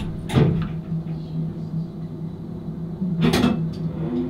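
Steady low machine hum, with two short rushes of noise, one just after the start and one about three seconds in.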